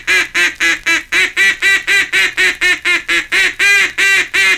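Mallard duck call blown loud and high in a long, unbroken run of quacks, about four a second, imitating two or three hen mallards calling together. This is the long call or greeting call, used to reach a flock of mallards about half a mile off.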